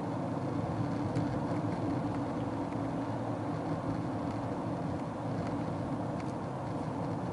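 Steady engine and tyre noise of a car driving along a road, with a few faint clicks.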